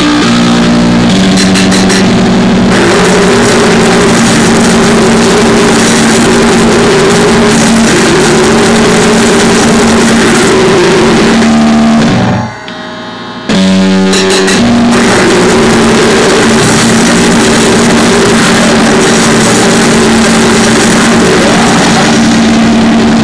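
Loud crust punk / noisecore music: heavily distorted guitar over drums in a dense, noisy wall of sound. It drops away for about a second near the middle, then starts again at full force.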